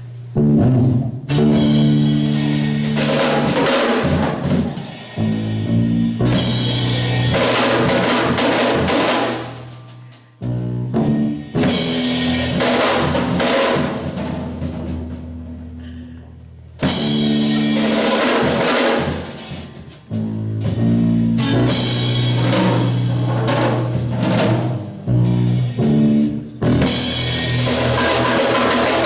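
Live gospel church band playing with a drum kit. Bass drum, snare and cymbals sound over sustained chords, in long phrases with brief breaks about ten, sixteen and twenty seconds in.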